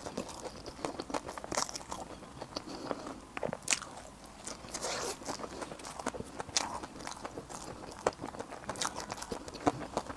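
Close-miked eating: biting and chewing food, with irregular crunchy clicks and crackles from the mouth.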